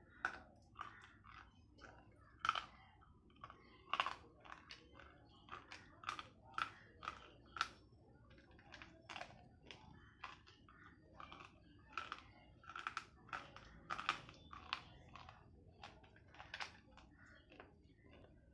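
Dry slate pencil being bitten and chewed: sharp, irregular crunches, roughly two a second.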